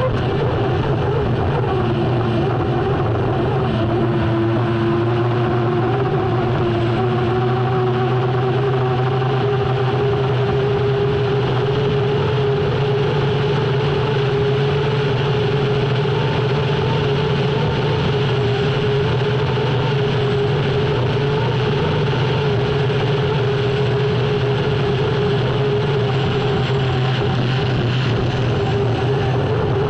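Unlimited hydroplane's turbine engine running hard, heard onboard over wind and water rush; its main tone rises a little over the first several seconds, then holds steady.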